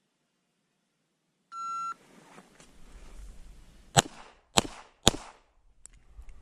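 A phone shot-timer beeps once. About two seconds later a Glock pistol fires three shots about half a second apart, a timed draw-and-fire string: two to the body circle, then one to the head.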